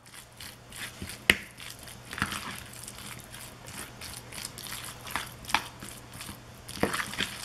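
Fork stirring and mashing egg salad in a white ceramic bowl: soft wet squishing and scraping, with a few sharp clinks of the fork against the bowl, the loudest about a second in.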